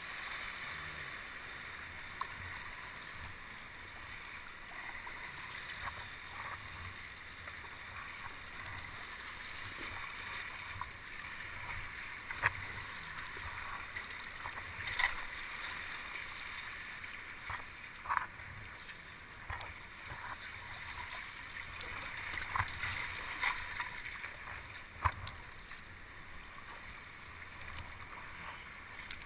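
Kayak paddling on sea swell: short splashes from the paddle every second or few, over a steady hiss of moving water.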